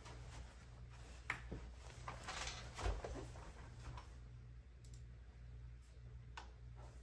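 A person sitting down at a computer desk: rustling movement and a soft thump about three seconds in, then a few light clicks, over a steady low electrical hum.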